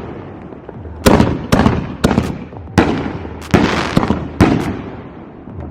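Consumer firework mortar shells bursting in the air: a quick string of about eight loud, sharp bangs over some four seconds, each trailing off in an echo.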